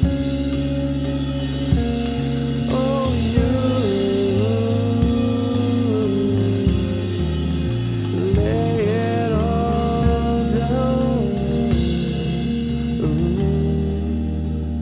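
Background song with a steady drum beat and guitar. A melody line comes in twice, near the start and again about halfway.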